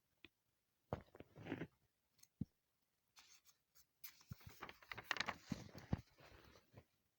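Faint rustling and scratching of fabric and zipper tape being handled as the zipper is pinned onto cloth, with a few small sharp clicks. The rustling is busiest in the second half.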